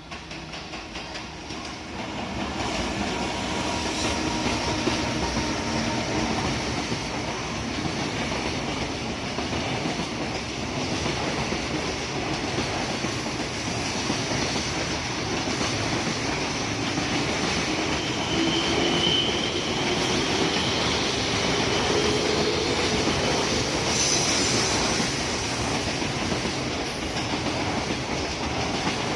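Freight train hauled by an EF210 electric locomotive passing, its wheels rumbling and clattering over the rail joints. The sound swells over the first two seconds, then holds steady as the wagons roll by.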